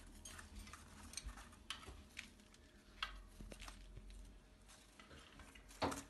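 Faint scattered clicks and taps as an Indian ringneck parakeet flaps and fluffs its wings at a plastic dish in its cage, with one louder knock near the end.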